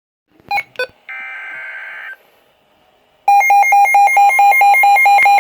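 Emergency alert tones for a tornado warning: two sharp clicks and a second-long buzzy burst, then, about three seconds in, the loud, rapidly pulsing two-tone attention signal.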